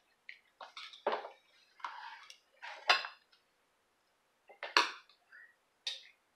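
Metal fork clinking and scraping against a ceramic bowl in several separate short strokes, the sharpest clinks about three and five seconds in.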